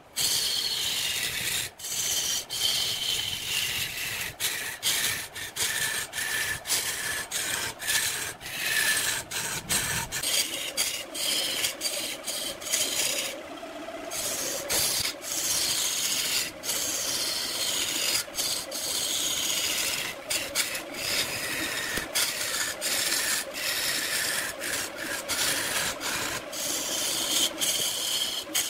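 Steel turning tool cutting into a large log spinning on a wood lathe: a continuous rasping scrape of steel on wood. The cut lets up briefly about halfway through.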